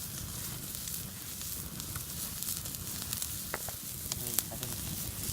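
Whole chicken sizzling as it cooks over an open fire, a steady hiss with a few sharp crackles.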